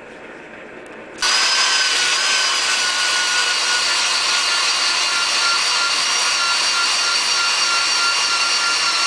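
Power-driven wire wheel buffing a folded sheet-metal lock joint to clean it before fluxing. It starts about a second in and runs steadily: a motor whine over the rasping hiss of the wire bristles on the metal.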